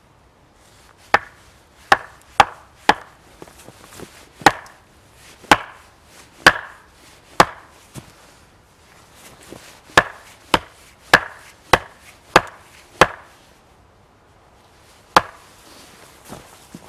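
Axe striking wood: about fifteen sharp, hard knocks in uneven runs, with short pauses between the groups and a last single knock near the end.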